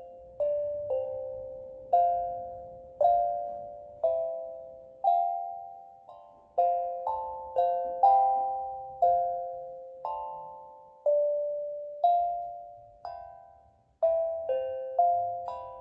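Steel tongue drum played slowly, single struck notes roughly once a second, each ringing out and fading. Pitches step up and down in a gentle melody, and the notes come a little quicker near the end.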